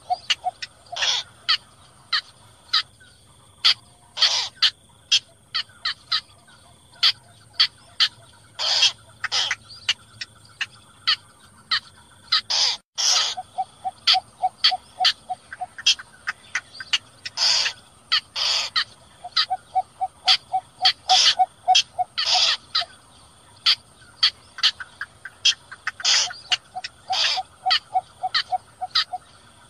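Calls of yellow bittern and cinnamon bittern repeated over and over: runs of short, low notes at about five a second alternate with louder, harsh single calls. A steady high whine runs beneath them.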